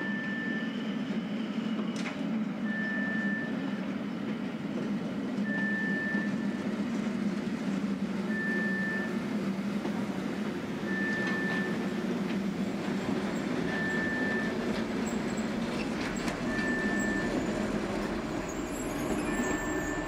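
Rhaetian Railway electric train in a station giving a steady low hum and rumble. A short high beep repeats about every three seconds over it.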